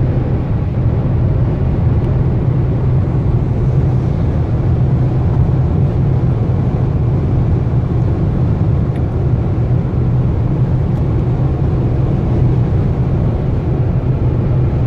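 Steady interior noise of an Audi A6 diesel cruising on the Autobahn at around 200 km/h: road and wind noise over an even low drone, with no change in level.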